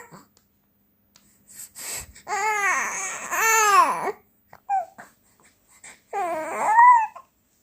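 A 3-month-old baby vocalizing: a long drawn-out call about two seconds in that rises and falls twice, a few short sounds, then another rising-and-falling call near the end.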